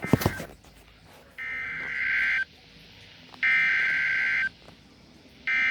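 NOAA Weather Radio SAME header: three bursts of digital data tones, each about a second long and about two seconds apart, marking the start of a new alert. A sharp click comes at the very start.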